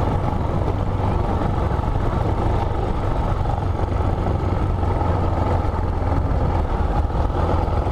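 Motorcycle engine running steadily under way, with a constant low hum and wind noise on the microphone.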